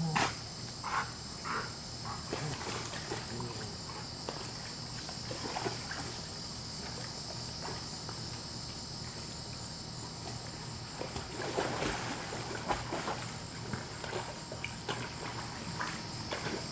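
A steady high chirring of insects, with scattered short scuffles, rustles and soft mouthing noises from two dogs play-wrestling in the grass.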